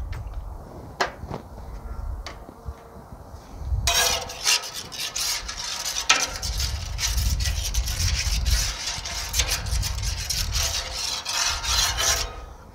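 Metal spatula scraping back and forth across the oiled steel flat top of a Blackstone griddle, spreading cooking oil over the hot surface. A few light clicks come first, then the scraping starts about four seconds in and runs in quick strokes until just before the end.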